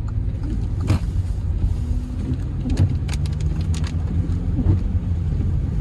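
Car running from inside the cabin, turning at low speed on icy, slushy streets: a steady low engine and road rumble with scattered short clicks and knocks.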